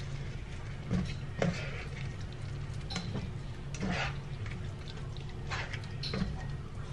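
A slotted spatula stirring ground meat in sauce in a large nonstick pan on the stove, with a scrape or light clack against the pan every second or so over a soft sizzle and a steady low hum.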